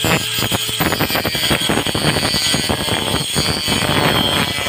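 Small angle grinder fitted with a toothed wood saw blade cutting into a wooden plank. As the blade bites in, the grinder's steady whine gives way to a dense, rapid rasping chatter that continues throughout.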